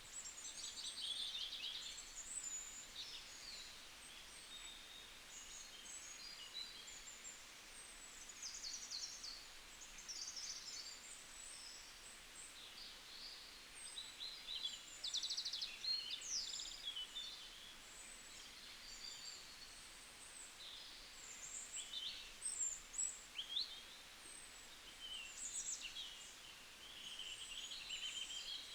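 Several songbirds singing and calling at once: high chirps, short rapid trills and quick downward-sliding notes, over a faint steady hiss.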